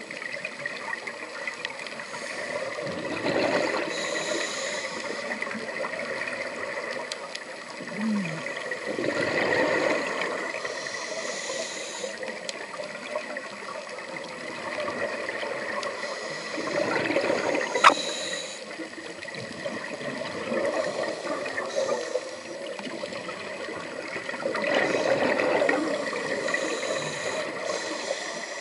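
Scuba diver breathing through a regulator underwater: swells of exhaled bubbles every several seconds over a steady watery hiss, as he works with his hands on his mask to clear it. One sharp click about two thirds of the way through.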